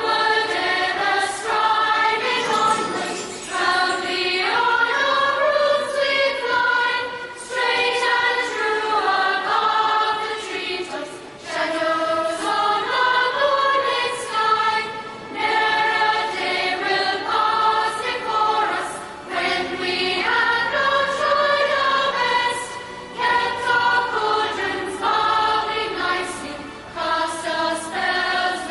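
Music with a choir singing, with short sharp high accents through it.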